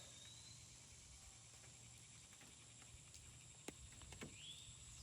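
Quiet woodland ambience: a faint, steady, high-pitched insect drone, with two light clicks of gear a little over halfway through and a short rising chirp just after them.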